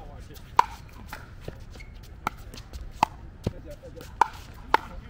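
Pickleball rally: paddles striking the hollow plastic ball with sharp pops, five hits in about four seconds at an uneven pace.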